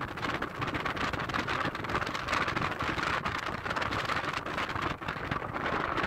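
Squall wind in a heavy blizzard: a steady rushing hiss of wind-driven snow, flecked with many fine ticks.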